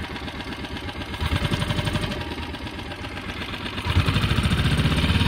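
Mercury 6 hp outboard motor pushing the dinghy in forward gear, running with an even beat. It gets louder about a second in and louder again about four seconds in as the throttle is opened.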